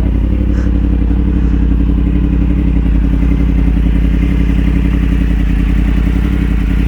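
Yamaha R1's crossplane inline-four engine running at steady, unchanging revs.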